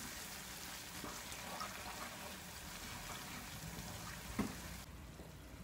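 Onion and tomato-and-pepper-paste sauce sizzling in a frying pan while a wooden spoon stirs it, the burner just switched off. A single knock about four seconds in, and the hiss cuts off near the end.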